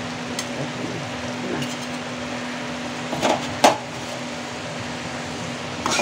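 Spatula stirring chicken in an aluminium kadai, knocking against the pan a few times; the loudest two knocks come a little past halfway. A steady hiss and low hum run underneath.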